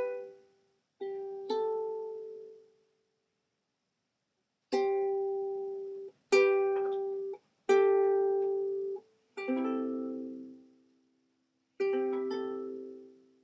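Background music: a plucked string instrument playing slow, separate chords, each struck sharply and left to ring out and die away, with a pause of almost two seconds in the first half.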